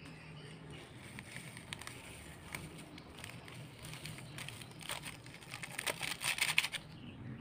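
A plastic-foil seasoning sachet crinkling as broth powder is shaken out of it into a metal bowl: faint scattered crackles, with a denser burst of crinkling near the end.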